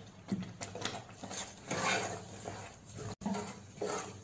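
Wooden spoon stirring thick, freshly sugared rice kheer in a pot: soft, irregular scrapes and squelches, one about every half second.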